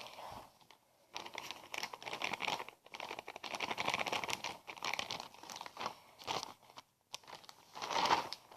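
Wheat flour package being handled: irregular crinkling and rustling as flour is poured out, with short pauses and a louder rustle near the end.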